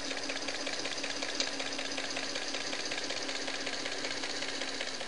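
Singer Model 513 sewing machine running steadily with its bottom cover off: a constant motor hum under a fast, even clatter from the belt-driven hook and feed gears and shafts.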